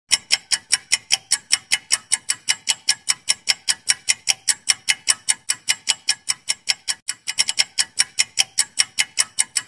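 Clock-ticking sound effect for a quiz countdown timer: sharp, even ticks, about five a second, with a brief stumble in the rhythm about seven seconds in.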